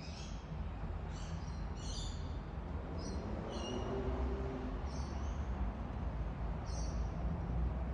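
A bird giving short, high chirps, about seven of them at roughly one a second, over a steady low hum.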